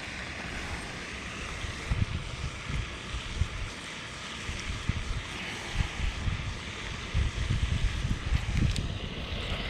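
Wind buffeting the microphone: a steady hiss with irregular, gusty low rumbles.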